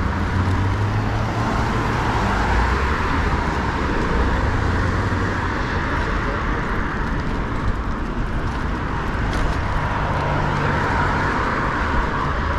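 Street noise recorded from a moving bicycle: a steady rumble of wind on the action camera's microphone, mixed with tyre and road traffic noise.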